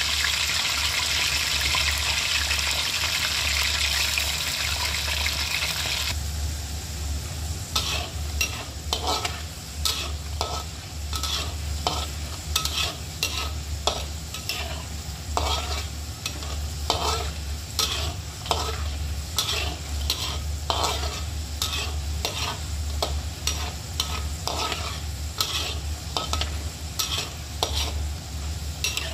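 Raw potato sticks deep-frying in hot oil in a wok: a loud, dense sizzle for about the first six seconds, then a thinner crackle as the oil settles. Through the rest, a spatula scrapes and knocks against the wok as the fries are stirred.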